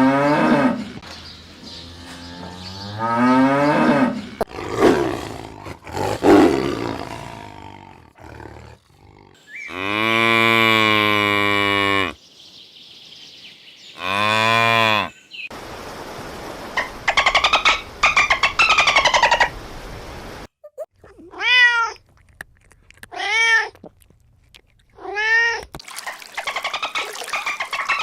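A string of different animal calls, one after another with short gaps, as in a farm-animal sound compilation; three short arched calls about two seconds apart in the second half are cat meows.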